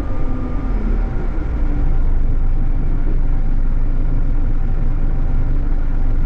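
Scania K420EB coach's rear-mounted diesel engine and drivetrain heard from inside the passenger cabin, a steady low rumble as the coach drives along. It grows a little louder about two seconds in.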